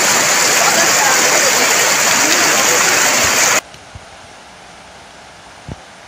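Loud steady rush of a fast, shallow river tumbling over rocks, heard from right in the water, cutting off suddenly about three and a half seconds in. After it, a much quieter faint rush with a couple of soft knocks.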